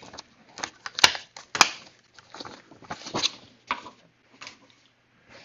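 Small items being handled on a workbench: rustling and light scraping with scattered clicks, two sharp clicks about a second in and half a second apart.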